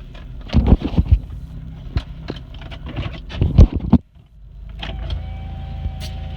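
Inside a car: a run of clicks and knocks with two heavier thumps, then, after an abrupt break, a steady low running hum with a faint whine.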